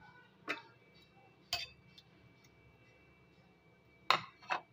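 Steel potato masher clinking against a ceramic plate while mashing soft roasted tomatoes and garlic: four sharp taps, one about half a second in, one about a second and a half in, and two close together near the end.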